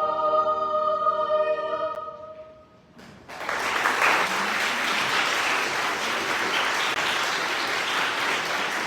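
Children's choir holding its final chord, which fades away about two seconds in; after a brief pause, audience applause breaks out and continues steadily.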